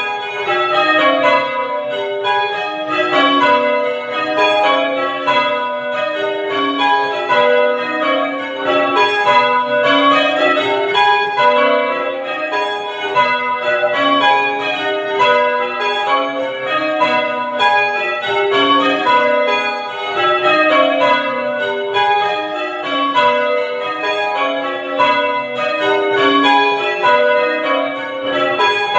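Church tower bells rung full-circle in change ringing. The strikes follow one another steadily in rows that step down in pitch from the lightest bell to the heaviest, row after row.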